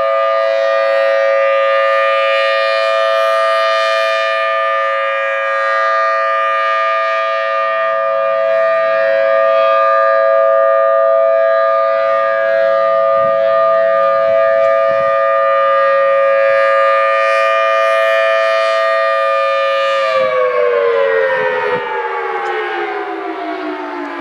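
Federal Signal Thunderbolt 1000T tornado siren sounding a steady two-note chord. About 20 seconds in it begins winding down, its pitch falling steadily.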